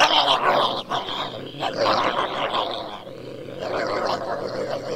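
A dog-like animal sound that starts suddenly and runs on, dipping briefly about three seconds in.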